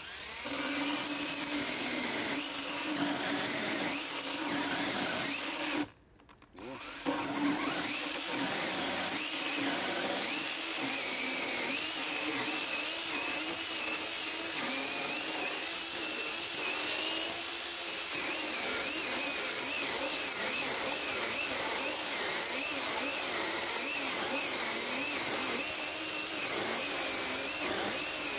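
Onegreen 36V brushless cordless chainsaw, on slightly discharged batteries, cutting down through a 300 mm square timber beam: a steady electric motor whine whose pitch wavers as the chain loads in the wood. About six seconds in it stops for about a second, then starts again and cuts on.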